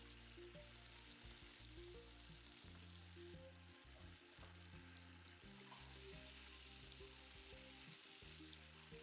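Seasoned chicken pieces sizzling faintly in hot oil in a non-stick frying pan, a steady hiss, under soft background music.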